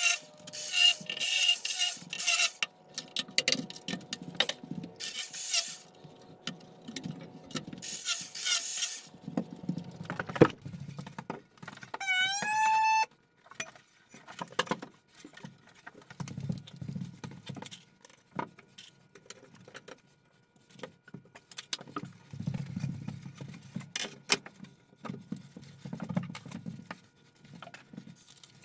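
Hand strokes rubbing the cut edge of a porcelain tile, a harsh scraping that comes and goes. Then a knock, and the small pump of a Grabo electric vacuum suction lifter spinning up in a rising whine that holds for about a second as it grips the tile. After that, low knocks and shuffling as the large tile is set down and bedded.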